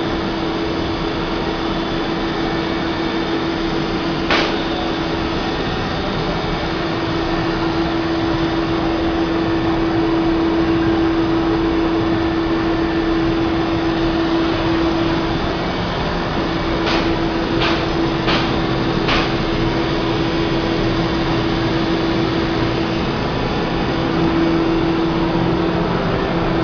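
CNC cutting machine running, a steady motor hum over a noisy whir, with a sharp click about four seconds in and a quick run of four clicks a little past the middle.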